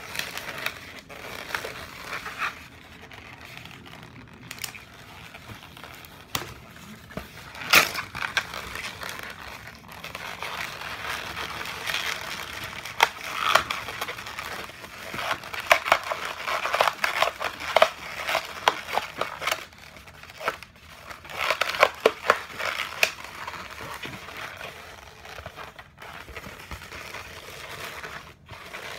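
Inflated latex modelling balloons squeaking and crackling as they are rubbed, squeezed and twisted by hand into a balloon figure. The sound comes in irregular bursts with a few sharp clicks, busiest through the middle.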